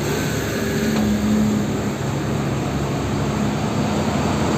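Steady engine-like drone with a low hum running under it, even in level throughout.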